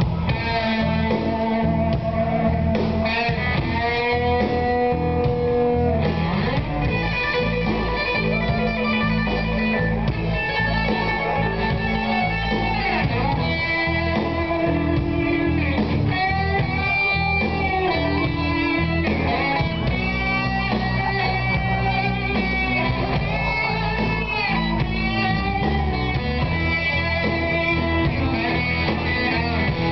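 Live rock band playing: an electric guitar plays sustained, bending lead notes over bass guitar and drums.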